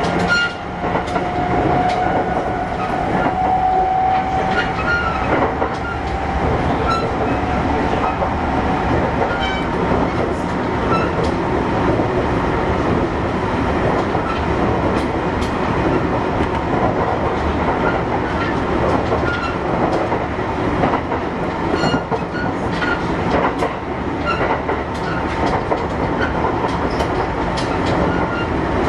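Kintetsu 1021 series electric train running at speed, heard from inside the car: a steady rumble of wheels on rail with scattered clicks over rail joints. A faint whine rises slightly and fades away about six seconds in.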